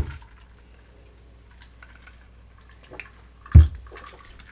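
A cocktail glass set down on a bar top with one solid knock about three and a half seconds in, after quiet sipping with a few small clicks.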